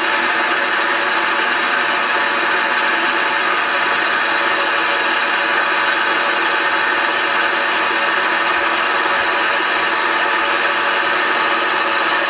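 Smart & Brown Model L lathe running steadily, a constant motor-and-drive whine made of many held tones.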